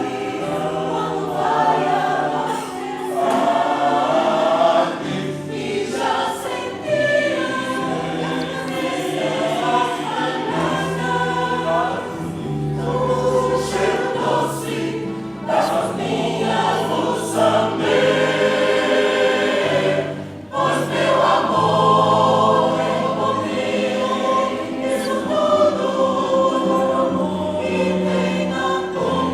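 Choir singing a song in several voice parts with piano accompaniment, sustained low piano notes under the voices.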